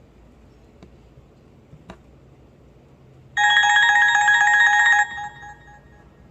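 HTC Desire 530 ringtone: a loud, rapidly warbling electronic tone plays for about a second and a half and then stops with a brief tail. Two faint clicks come before it.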